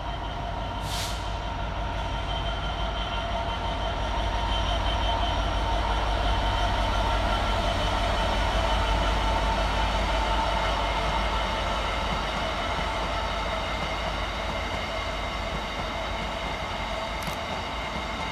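A freight train hauled by a Class 66 diesel locomotive rolling slowly past. It is a steady, continuous running sound that swells to its loudest about midway and eases off towards the end.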